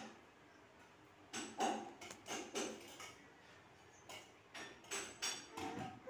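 Handling noises: a string of short, soft knocks and rustles in two bursts, one starting about a second in and one in the second half.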